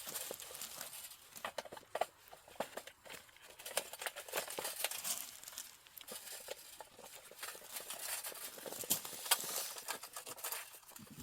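Split firewood sticks being packed by hand into a container on top of charcoal: irregular small clicks, knocks and scrapes of wood.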